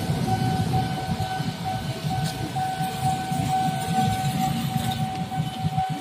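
Motorcycle engines running in a steady stream of traffic over a railway level crossing, under a continuous high-pitched tone that breaks briefly now and then.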